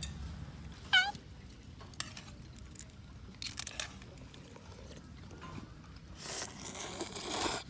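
A small dog gives one short, high whine about a second in. Near the end comes a louder stretch of rustling noise.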